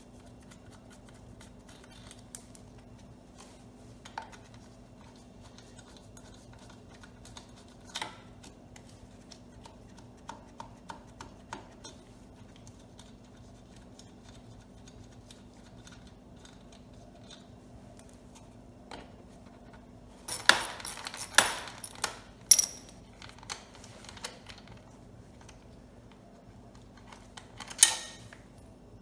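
Scattered clicks and a few bursts of hard plastic-and-metal clattering, the loudest about two-thirds through and again near the end, as the air cleaner cover and housing of a Kohler Courage XT7 small engine are handled and taken off to reach the carburetor. A faint steady hum runs underneath.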